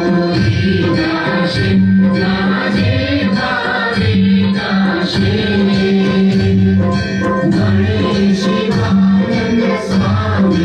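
Devotional aarti song: many voices singing together over rhythmic jingling percussion.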